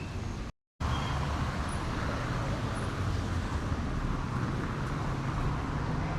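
Street traffic with a motor vehicle engine running close by, a steady low rumble. The sound drops out completely for a moment about half a second in.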